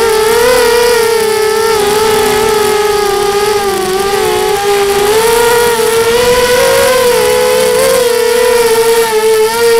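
QAV250 racing quadcopter's brushless motors and propellers whining in flight: a loud steady hum whose pitch wavers slightly up and down.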